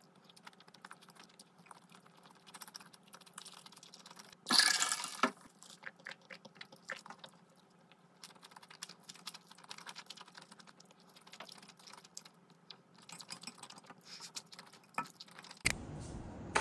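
Close-miked eating sounds of instant noodles in thick sauce: small wet chewing clicks and wooden chopsticks tapping the plate, with one loud slurp of noodles about four and a half seconds in. Near the end a steady low hum comes in.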